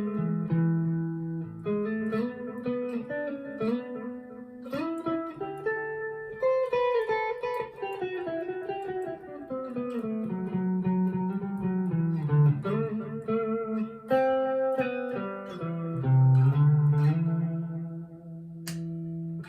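PRS SE Custom 24 electric guitar played on a clean tone through a Line 6 Catalyst 60 amplifier: a loose run of single notes and chords, with a few sliding notes partway through.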